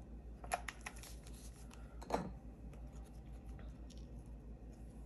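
Hands handling and pressing a glued cardstock strip onto a card: faint paper rustling and rubbing with a few soft clicks and taps, the loudest about two seconds in.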